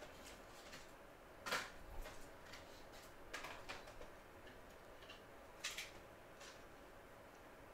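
Quiet workshop room tone with a faint steady hum, broken by a handful of light, sharp clicks and taps.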